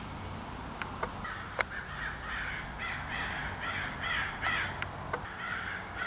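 Crows cawing harshly in a rapid, continuous series from about a second in: mobbing calls at a perched owl. A few sharp clicks break in.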